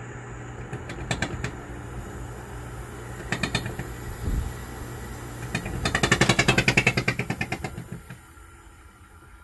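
Air conditioner running with a steady low hum and spells of fast rattling from vibration, the loudest lasting nearly two seconds about six seconds in: the abnormal vibration noise the unit is being repaired for.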